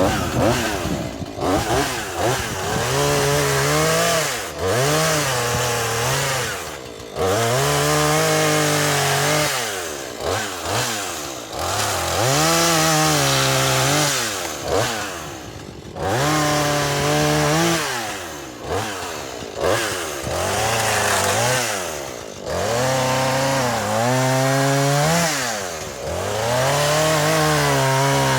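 Husqvarna 440e two-stroke chainsaw cutting wood. The engine speed rises and sags again and again as the chain bites and the saw is eased off, about half a dozen times.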